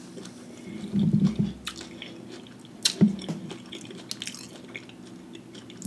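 A man chewing a bite of Flamin' Hot Cheetos–coated fried pickle, with soft mouth sounds and a few short smacks and clicks.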